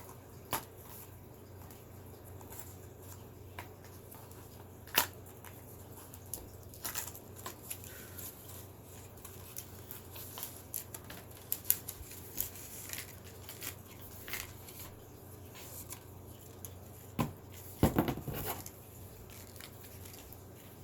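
Plastic packaging rustling and tearing with scattered clicks and knocks as small boxed items are unwrapped and handled, the loudest handling noises about five seconds in and again near the end.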